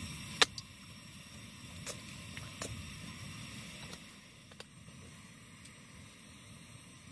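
Camp cooking sounds: a steady hiss that eases off a little partway through, with a few sharp clicks, the loudest about half a second in.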